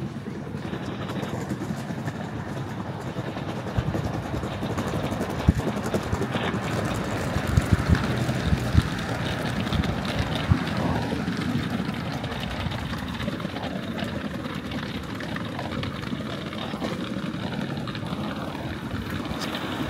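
Street ambience: a steady low rumble, a few sharp knocks around the middle, and faint voices in the second half.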